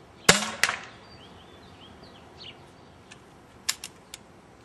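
Custom pump-action paintball pistol, powered by a 12-gram CO2 cartridge, fires a shot: a sharp pop, then a second, quieter crack a third of a second later. Birds chirp faintly, and a few short sharp clicks come near the end.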